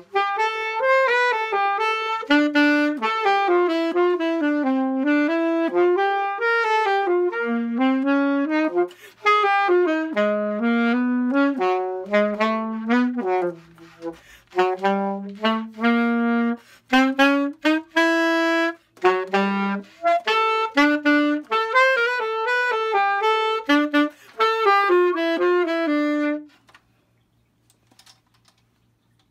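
Unaccompanied alto saxophone playing a flowing melodic line of single notes with brief breaths between phrases, stopping about three seconds before the end.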